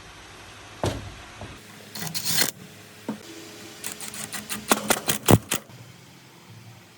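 Metal parts and hand tools clinking and knocking during workshop work on a pressure-washer machine: a single knock about a second in, a short rattle near two seconds, then a quick run of clicks and knocks over a faint low hum.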